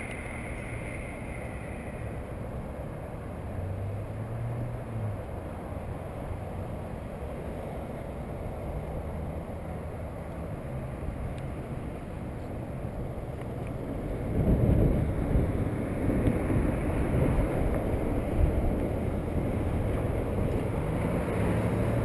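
Cars driving past at low speed, their engines and tyres making a steady rumble, with wind on the microphone. It grows louder about two-thirds of the way through.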